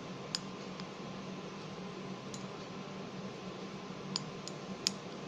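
A utensil clinking against the mixing dish now and then, about five short sharp clinks, while soap and salt are stirred into slime, over a steady low hum.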